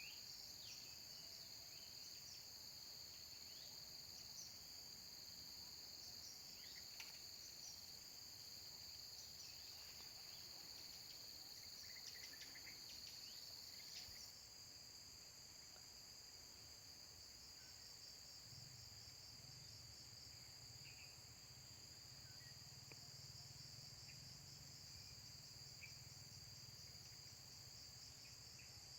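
Faint, steady chorus of insects: a continuous high trill with fast pulsing above it. Short high chirps come and go through the first half, and a low hum comes in about two-thirds of the way through.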